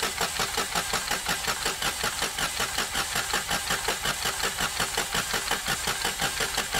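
Starter motor cranking a Peugeot 108's 1.2 PureTech three-cylinder engine with its ignition coils unplugged. It turns over in an even rhythm of about five pulses a second without firing, priming the oil pressure after the timing-belt service.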